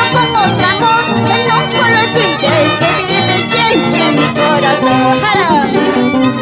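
Andean folk string band playing an instrumental passage with no singing: violins carry a sliding melody over strummed guitar, mandolin and accordion, with a steady, even bass pulse.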